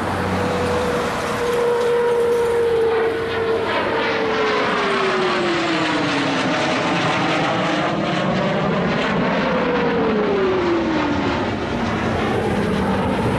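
F-15 fighter jet flying past, its twin jet engines giving a loud rushing noise with a whine that drops in pitch as it goes by, then drops again a few seconds later.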